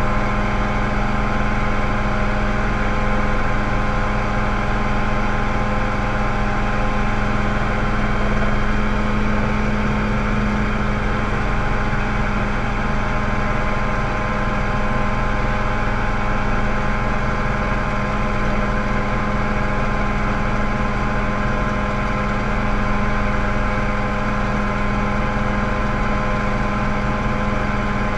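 Mosquito ultralight helicopter in steady forward flight, its engine and rotor running at a constant, unchanging pitch as heard from the pilot's seat in the cockpit.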